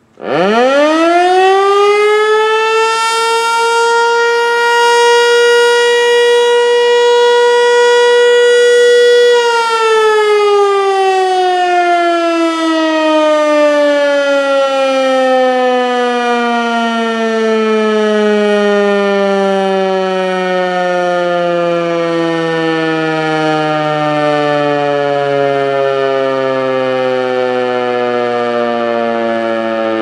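ASC T-121 electromechanical tornado siren sounding a short alert. It winds up within about two seconds to a steady high wail and holds there for about nine seconds. Then it winds down, its pitch falling slowly through the rest of the sound.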